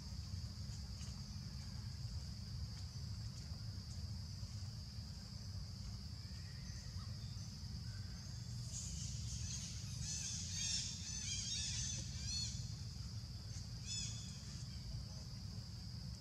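Outdoor forest ambience: a steady high insect drone over a low rumble, with a run of quick, high, repeated chirps from about nine to twelve seconds in and a short burst of them near fourteen seconds.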